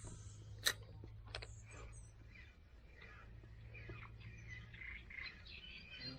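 Faint birds chirping, with two sharp clicks within the first second and a half.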